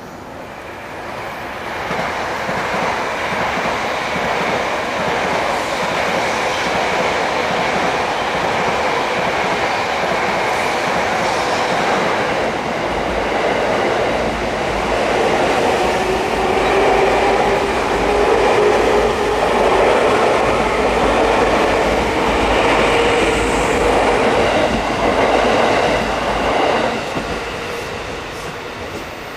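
E257-500 series electric express train running past on the rails: wheel-on-rail noise builds over the first couple of seconds and stays loud, with a steady hum through the middle, then fades near the end.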